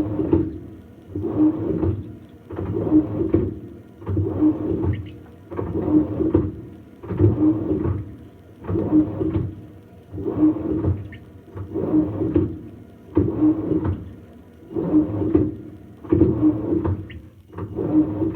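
Samsung washing machine agitating a deep-filled load of towels and nightgowns: water and wet laundry sloshing back and forth in a steady rhythm, one swish about every second and a half.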